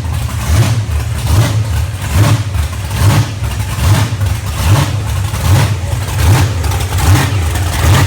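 Big-block Chevy V8 in a custom Corvette running loud, with a lumpy, regular surge about twice a second.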